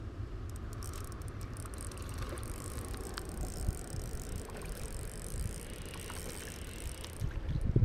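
Shimano Ultegra 2500 spinning reel being cranked to bring in a hooked mullet, its gears and rotor whirring with a fine ticking; the whirr stops shortly before the end.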